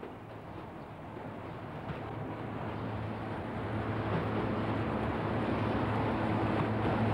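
British Rail 'Peak' class diesel locomotive approaching along a station platform with its train, its engine running with a steady low hum that grows steadily louder as it draws near.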